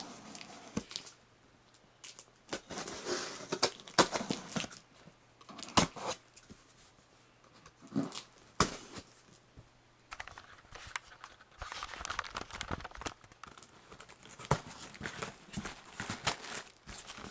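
A cardboard shipping box being opened by hand: packing tape cut with a knife and torn, with cardboard rubbing and crinkling and scattered sharp knocks, coming in bouts with short pauses.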